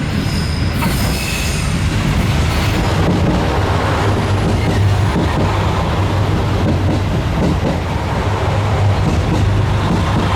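KiHa 200 series diesel railcar running, with a steady low engine and rolling rumble and a thin high wheel squeal in the first few seconds.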